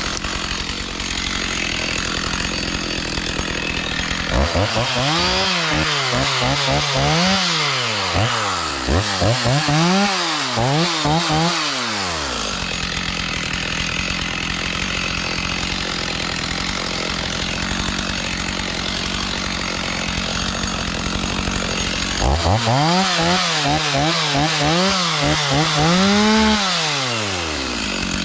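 Two-stroke chainsaw running, revved up and down in quick repeated swells in two spells, with steadier running between them.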